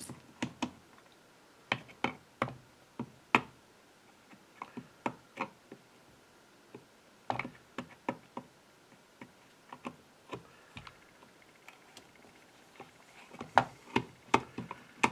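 Irregular light clicks and taps of a screwdriver and small screws being handled as the screws are taken out of a drill's housing, coming in small clusters a few seconds apart.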